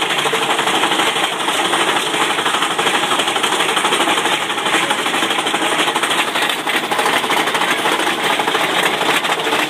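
Mine-train roller coaster clattering along its steel track: a loud, dense, rapid rattle that holds steady throughout.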